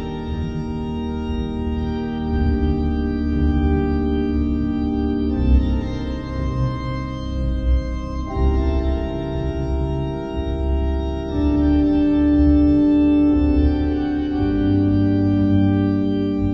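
Background music of slow, sustained chords that change every three seconds or so.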